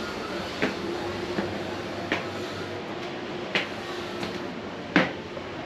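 Footsteps walking at an even pace, about one and a half steps a second, every other step sharper, over a steady background hum.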